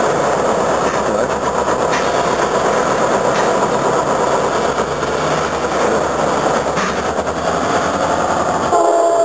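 EMD GP38-2 diesel locomotive, a 16-cylinder two-stroke, running as it slowly moves a cut of hopper cars during yard switching. The engine noise is steady, with wheels rolling on the rails and a few light clicks.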